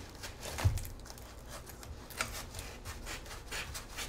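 A knife sawing through packing tape and the cardboard of a mailer package: a run of irregular scratching strokes, one a little louder about a second in.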